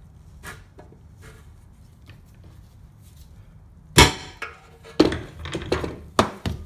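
A hammer striking a punch against a steel oil pan to make a starting mark for drilling. There are several sharp metallic strikes from about four seconds in, the first the loudest.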